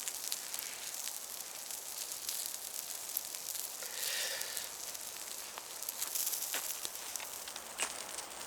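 Wood campfire crackling: irregular sharp pops over a steady high hiss, with meat sizzling over it. A brief rustle about four seconds in.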